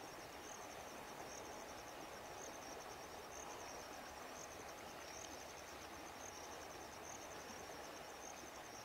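Insects chirring steadily at a high pitch, swelling about once a second, over a faint outdoor hiss.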